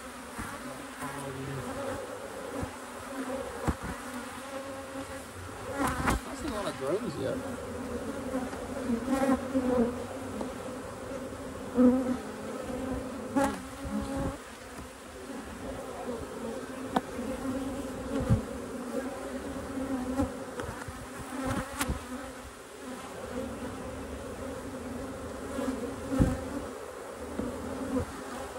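A colony of honey bees buzzing around an opened hive: a steady hum of wingbeats, broken by a few sharp knocks.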